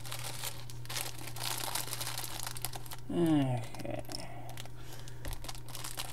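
Clear plastic parts bag crinkling as a hand rummages in it and pulls out Lego pieces, with a short wordless vocal sound, like a falling hum, about three seconds in.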